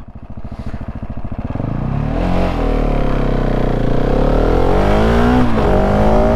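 Husqvarna 701 single-cylinder engine with a Remus exhaust, accelerating hard from a standstill on a 0-100 km/h launch. The revs build slowly at first and then climb steadily; a brief drop about five and a half seconds in sounds like an upshift, after which the pitch climbs again. The launch is a poor one, not getting away well.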